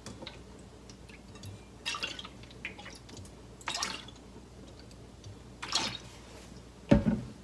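Mirin being spooned into a pot of water: a few short trickles and drips of liquid, with a knock near the end.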